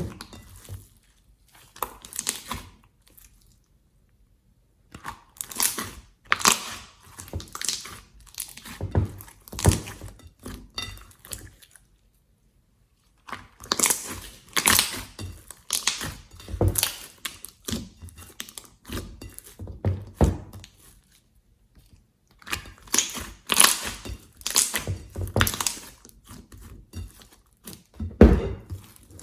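Slime being squeezed and worked by hand, giving runs of crackling, popping clicks and squelchy crunches. The runs come in separate bursts that cut off abruptly into silence a few times.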